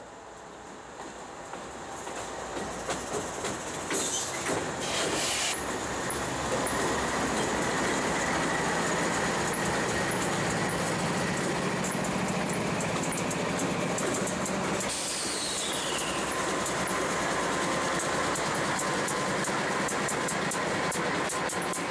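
Three GE diesel locomotives (two D9-44CW and a D8-40C) running light past at close range, with no cars behind them: engines running and steel wheels rolling over the rails. The sound builds over the first few seconds and then stays loud. Near the end there is a quick run of wheel clacks.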